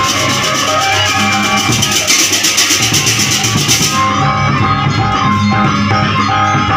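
Live Javanese-style gamelan music with drums and a bamboo suling flute playing held, steady notes over busy percussion. A bright high shimmer drops out about four seconds in while the tune and drums carry on.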